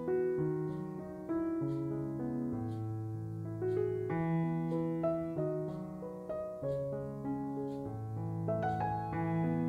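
Background piano music: a slow melody over held bass notes.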